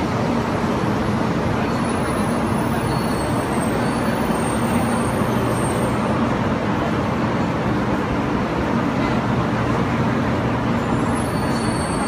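Steady rumble and hiss of a moving vehicle running at an even pace, with a low hum held underneath.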